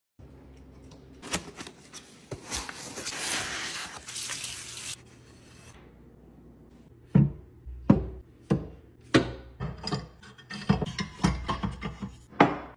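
A wooden dish rack being put together and loaded: first a scraping rub, then a run of sharp wooden knocks and clicks as dowels are pressed into the rails and plates are set into the slots.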